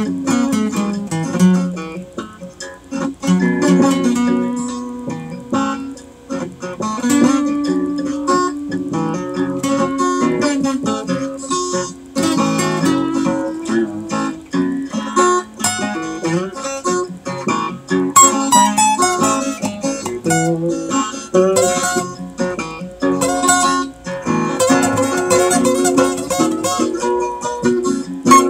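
Acoustic guitar playing an instrumental, plucked single notes over ringing chords. It is a sound-on-sound recording, so the guitar parts are layered.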